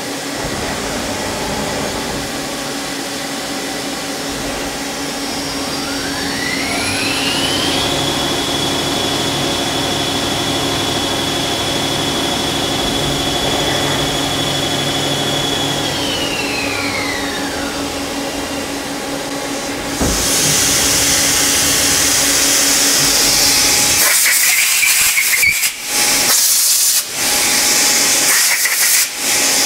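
Mazak CNC lathe running an insert-drill drilling cycle under flood coolant: a steady machine hum, with a whine that rises, holds steady for several seconds, then falls away. About two-thirds through, a loud hiss sets in suddenly, broken by a few brief drop-outs near the end.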